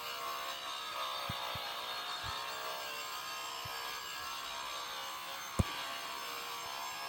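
DeWalt DWE490 9-inch angle grinder with a diamond disc running steadily while cutting wood, its whine dipping in pitch briefly as the disc bogs in the wood and then picking back up. A single sharp knock comes near the end.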